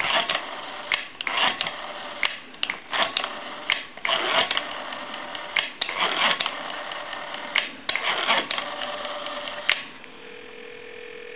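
Rotary dial of a 43A Space Saver telephone being pulled round and released digit after digit, each return a run of clicks as the number is dialled. About ten seconds in the clicking stops and a steady ringing tone comes over the line as the call goes through.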